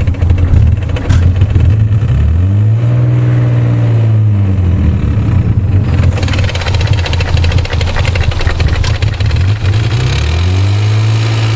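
1991 Nissan 300ZX's 3.0-litre V6 idling with a fast ticking, revved up briefly about two and a half seconds in and again near the end. The owner calls the ticking weird and not normal for this engine.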